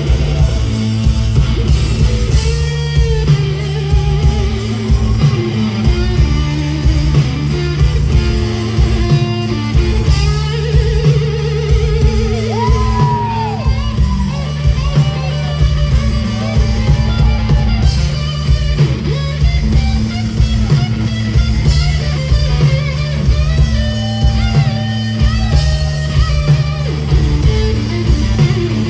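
Rock band playing an instrumental passage: an electric guitar carries a lead line with bent and wavering notes over a steady bass line and drums.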